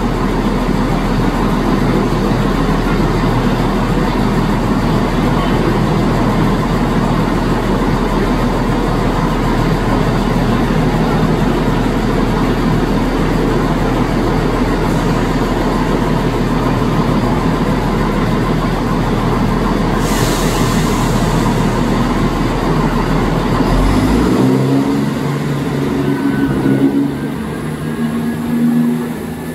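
Diesel multiple-unit trains at a station platform: a loud, steady engine drone from the unit standing alongside. About 24 seconds in, the low hum drops away and shifting, stepped engine tones follow as a train moves.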